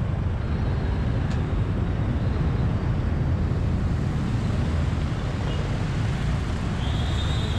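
Steady low rumble of a motorcycle riding slowly through crowded traffic, with wind noise on the microphone. A short, wavering high whistle sounds near the end.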